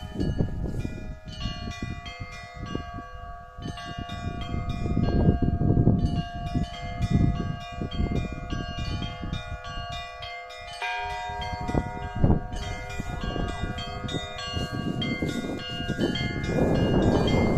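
Russian Orthodox church bells rung together in a peal: several bells of different pitch struck in quick succession, the higher small bells chiming rapidly over lingering deeper tones.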